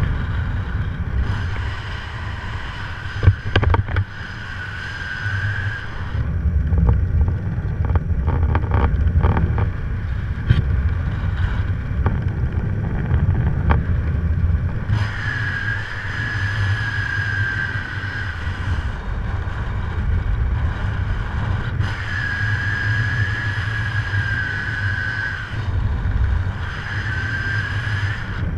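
Wind buffeting the camera microphone under an open parachute canopy during the descent, a steady low rumbling roar. A high, slightly wavering whistle-like tone comes and goes about four times, and there is a brief knock about three seconds in.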